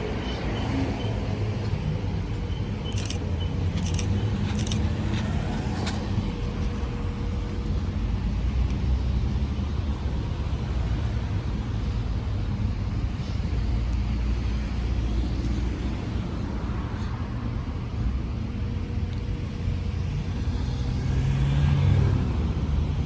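A car driving: a steady low road and engine rumble, with a few sharp clicks about three to six seconds in.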